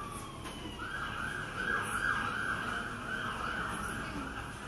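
An emergency vehicle siren going by: a falling tone, then from about a second in a fast yelp that rises and falls nearly three times a second. Under it is a steady low background hum.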